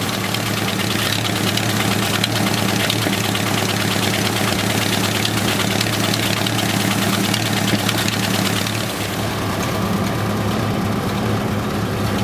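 1931 Gleaner combine running, its Ford Model A four-cylinder engine turning at a steady speed under a fast, continuous clatter from the belts, chains and threshing works.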